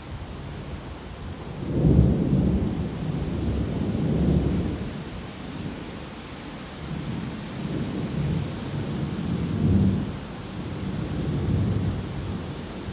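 Storm wind gusting against the microphone in low, rumbling surges that rise and fall every few seconds, the strongest about two seconds in and again near ten seconds, over a steady hiss.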